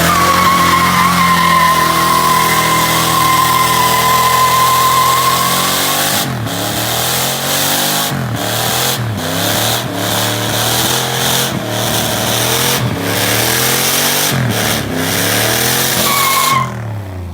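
A car doing a burnout: the engine held high with a steady tyre squeal for about the first six seconds, then revved up and down over and over with short breaks, and the tyres squeal again briefly near the end.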